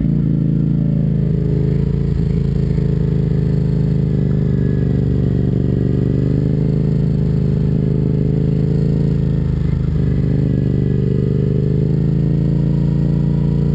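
Yamaha FZ-07 parallel-twin engine through an Akrapovic full exhaust, running steadily as the bike is ridden, its pitch dipping and rising a little partway through.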